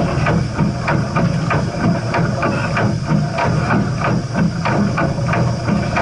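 Steam train running, a steady low rumble with frequent irregular knocks and rattles over it.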